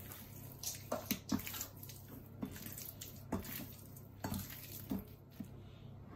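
Raw seasoned chicken breasts being squeezed and turned by hand in a bowl: irregular wet squelches and slaps.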